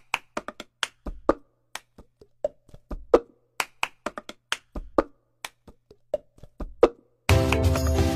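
Cup-song rhythm: hand claps and taps with a cup knocked on a hard surface, a quick run of sharp, separate hits with silence between them. About seven seconds in, a full music track with steady bass starts.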